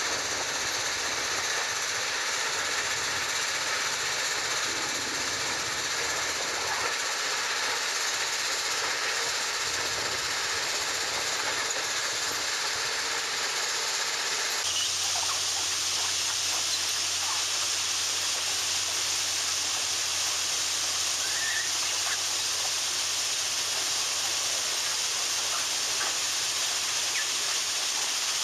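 Loram shoulder ballast cleaner at work on the track: its engine running and its digging wheel churning through ballast make a loud, steady, hissing rush. About halfway through the sound changes suddenly to a harsher hiss over a steady low hum, as ballast is carried up a conveyor on a track machine.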